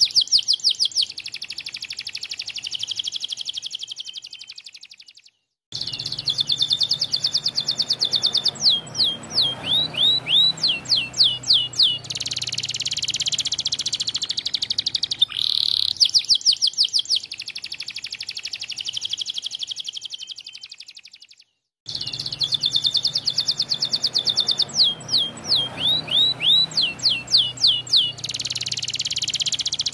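White domestic canary singing long, fast phrases: rapid trills of repeated high notes, runs of separate downward-sweeping whistled notes, and buzzy rolls. The song fades and breaks off twice into a short silence, about five seconds in and again about twenty-one seconds in, then starts again.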